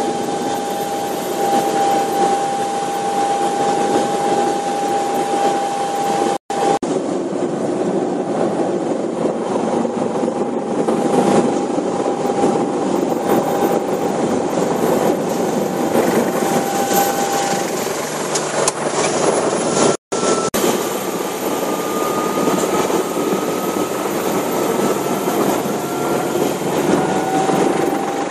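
Bell 430 twin-turbine helicopter heard from inside the cockpit on final approach to land: steady rotor and engine noise with a steady turbine whine. In the second half a higher whine slowly rises in pitch. The sound drops out for an instant twice.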